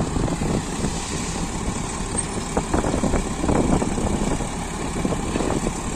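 Farm tractor diesel engines running close by, a steady rumble, with a few light knocks a little after the middle.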